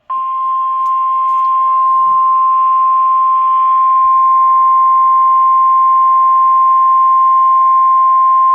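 NOAA Weather Radio 1050 Hz warning alarm tone: one steady, loud, high beep held for about nine seconds over radio hiss, signalling that a warning broadcast is about to follow.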